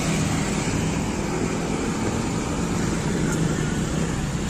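Large bus's diesel engine running steadily as the bus manoeuvres slowly.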